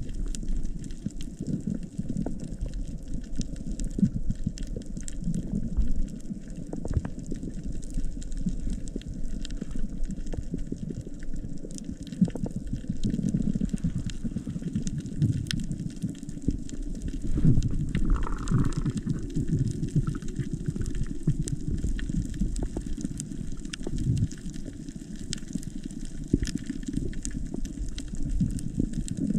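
Underwater ambience on a reef: a steady low rush of moving water with many scattered sharp clicks, and a brief higher tone about two thirds of the way through.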